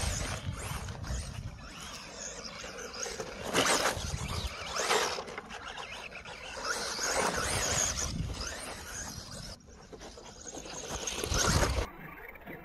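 LC Racing EMB-WRC electric RC rally car running, its motor whining up and down in pitch as the throttle is worked, with several louder surges as it passes close. The sound changes abruptly near the end.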